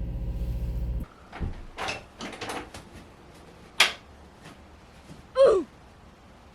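A steady low car-interior rumble cuts off about a second in. Then come a few short rustling, handling sounds and one sharp click, the loudest sound, a little after the middle, followed near the end by a short exclaimed "ooh".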